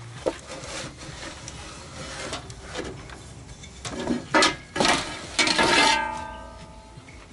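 Board lid scraping and rubbing over the wooden frame of a wire-mesh cat trap, with light knocks and then a few loud scraping strokes about two-thirds of the way in. The last stroke ends in a brief pitched squeak.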